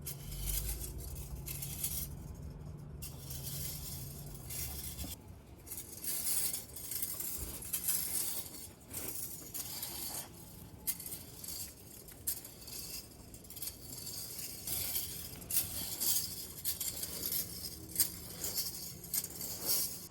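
Grass seed rattling in its cardboard box as it is shaken out and scattered over bare soil, in repeated short hissing bursts. A low steady hum runs underneath.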